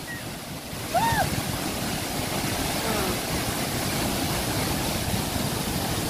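Boti Falls' twin waterfall pouring into its plunge pool: a steady rush of falling water. About a second in, a single short call rises and falls over it.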